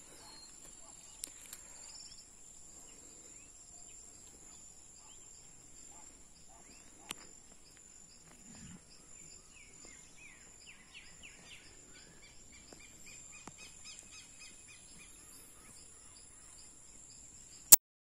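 Quiet rural evening ambience: insects keep up a steady high-pitched trilling, and birds chirp briefly near the start and again in a quick run of repeated notes about ten to fourteen seconds in. A single sharp click sounds just before the end.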